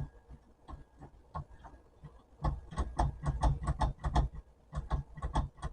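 Antique manual typewriter's mechanism clacking: a few scattered clicks, then from about halfway a fast run of sharp strikes, about five or six a second. The carriage does not advance on its own, which the owner puts down to a broken carriage spring.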